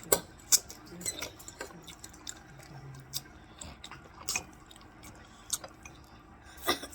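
Eating sounds: a dozen or so irregular, sharp wet clicks and smacks, from chewing and cutlery, while a person eats spaghetti.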